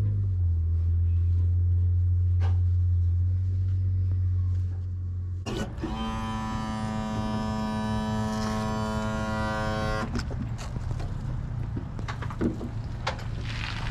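A low steady engine drone for about five seconds, then a single long horn blast of about four seconds at a steady pitch, which cuts off sharply and leaves a lower rumble.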